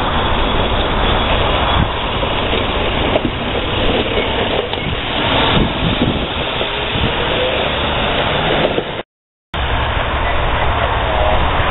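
Norfolk Southern hi-rail truck, an International (Navistar) box truck, driving along the railroad track and passing close by: a steady engine hum under the rumble of its wheels on the rails. The sound drops out for about half a second around nine seconds in, then carries on at the same level.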